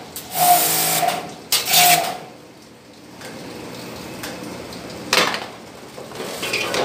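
Water spraying in hissing bursts onto a plastic dish rack and steel dishwasher surfaces, with a quieter stretch in the middle.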